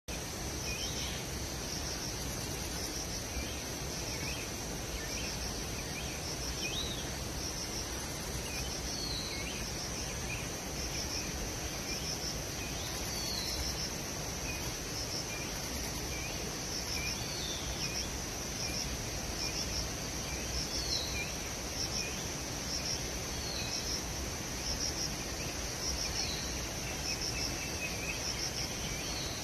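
Steady, high-pitched pulsing insect chorus, with short falling bird chirps every few seconds and fainter twittering beneath, over a low even background hiss.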